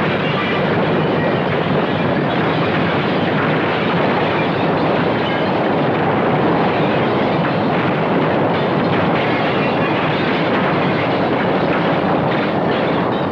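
Earthquake sound effect: a loud, continuous rumbling roar of a building shaking, with the crash of falling plaster and debris.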